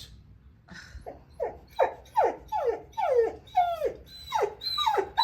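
A Catahoula leopard dog whining in a rapid string of short cries, each falling in pitch, starting about a second in. These are her impatient complaints at being made to wait for a promised trip to the dog park.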